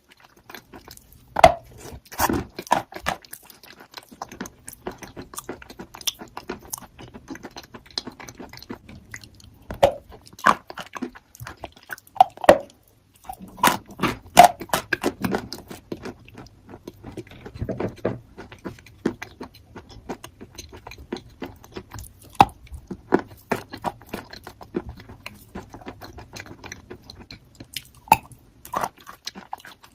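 A person biting and chewing crunchy chalk, with sharp crunches at irregular intervals and softer chewing between them.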